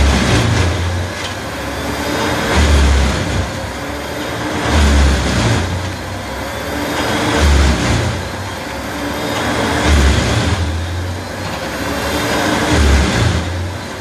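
Bandit 2090 drum chipper chipping spruce: its engine is working under load as the drum cuts and throws chips out the discharge chute. The sound swells and eases about every two and a half seconds.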